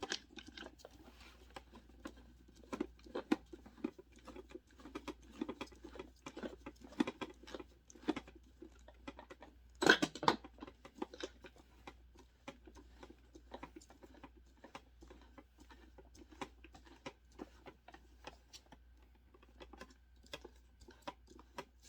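Plastic parts of a SodaStream Fizzi being handled: many small irregular clicks, taps and scrapes as the carbonating bottle is fitted to the machine, with one louder knock about ten seconds in.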